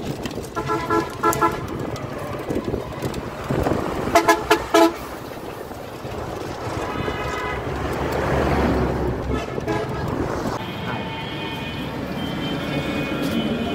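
Street traffic with vehicle horns honking: a burst of short toots about a second in, a louder burst around four seconds, and a longer steady horn near the end.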